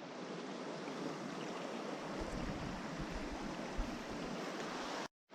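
Mountain stream water rushing steadily, with some low rumble joining about two seconds in.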